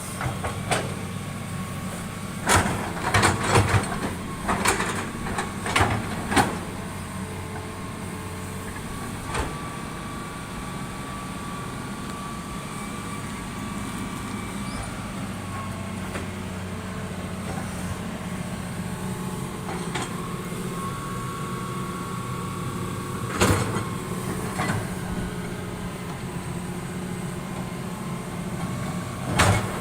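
Heavy earthmoving machinery's diesel engine running steadily, with a faint whine partway through. Sharp metal clanks come in a cluster a few seconds in, then singly later on and near the end.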